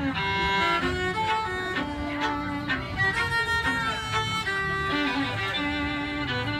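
Two fiddles playing a tune together as a duet, bowed notes moving steadily with two lines sounding at once.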